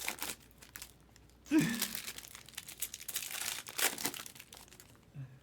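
Crinkling and rustling of plastic card packaging being handled, in irregular crackly bursts. A brief low voice sound comes about one and a half seconds in.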